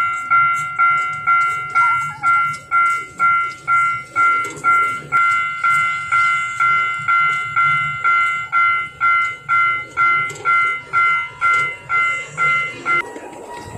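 Miniature railroad crossing's warning bell ringing its "kan-kan" alarm, about two strikes a second, then cutting off suddenly near the end.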